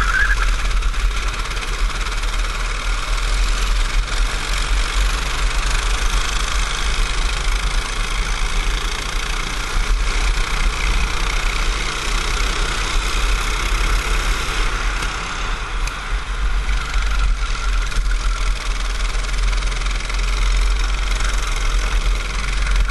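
Racing kart engine running hard on the track, heard from a camera mounted on the kart, with a steady low rumble underneath.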